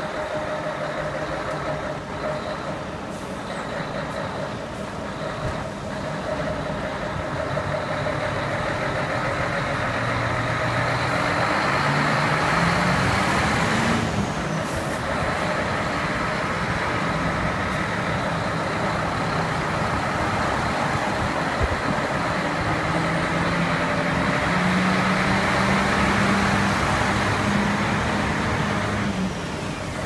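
Diesel engines of several concrete mixer trucks running, a steady heavy engine hum that grows louder about a quarter of the way in, with the engine note briefly rising and falling near the middle.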